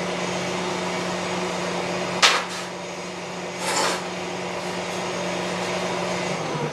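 Truck engine running steadily with a low hum, heard from inside the towed trailer, while the trailer is pulled at from a mud rut; a sharp knock about two seconds in and a short rush of noise near four seconds, with the hum dropping away at the end.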